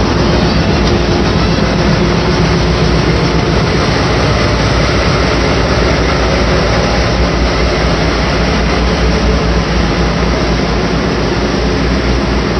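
JR Kyushu 415 series electric train standing at the platform just before departure, its onboard equipment running with a steady, loud hum and hiss.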